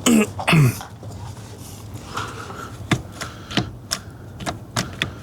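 Irregular sharp clicks and taps of metal parts as the ignition lock cylinder is worked into the steering column, about half a dozen in the second half. A short grunt-like voice sound comes right at the start.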